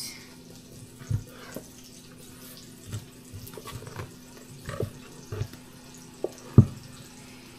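Bagel dough being worked loose from a stainless-steel bread machine pan, with scattered soft knocks and scrapes of hand and utensil against the metal; the sharpest knock comes near the end. A steady low hum runs underneath.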